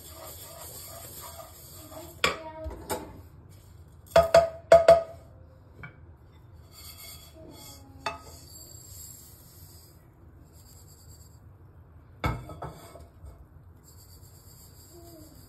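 Kitchenware clatter as toasted sesame seeds are stirred and tipped out: a wooden spatula and a nonstick pan knocking and scraping, and the pan's rim clinking on a ceramic bowl. There are a few sharp knocks, the loudest cluster about four to five seconds in.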